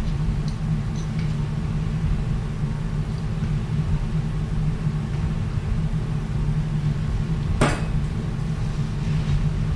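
Steady low hum of operating-room equipment, with one sharp metallic clink about three-quarters of the way through and a few faint ticks of surgical instruments.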